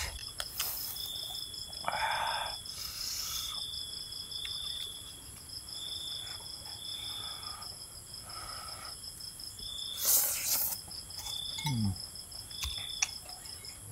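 Crickets and other night insects chirping steadily, one call repeating about once a second, with scattered sounds of eating, chewing and a spoon in a bowl, over the top.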